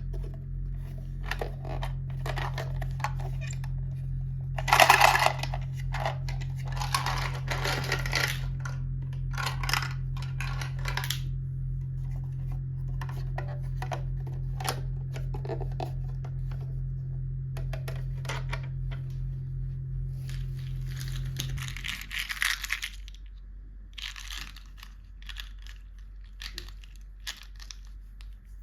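Packaging being torn and crinkled open by hand, in several short rustling bursts with small clicks and taps in between. A steady low hum runs underneath and stops suddenly about three-quarters of the way through.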